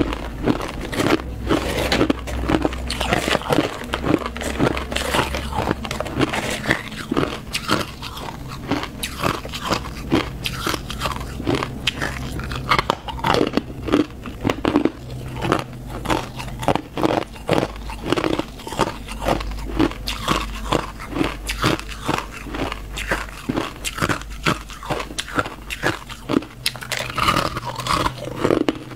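Hard ice being bitten and chewed close to a clip-on microphone: a steady, unbroken run of sharp crunches.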